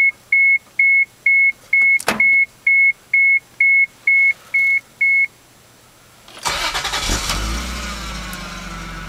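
A dashboard warning chime beeps about a dozen times, about two a second, with a single click in between. After a short pause the 1989 Toyota Supra Turbo's 3.0-litre turbocharged inline-six is started: it catches quickly and settles into a steady idle.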